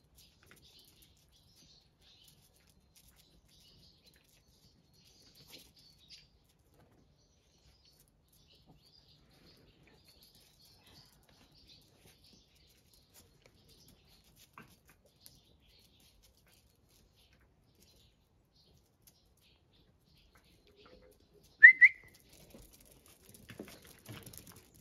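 Faint bird chirps over a quiet yard; about 22 seconds in, one short, loud, rising whistle, then scuffling noises as two puppies come running near the end.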